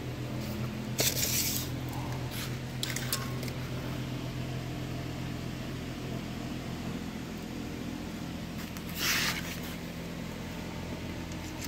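Steady hum of shop machinery, like a fan or air handler. Two short hissing scrapes, one about a second in and one near the end, with a few light clicks between them.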